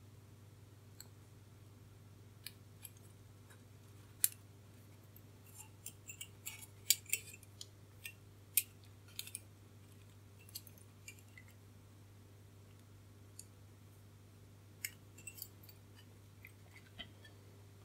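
Light, sharp clicks and ticks of wire resistor leads and a printed circuit board being handled as the leads are bent over on the underside of the board. There is a busy run of clicks in the first half and a few more near the end.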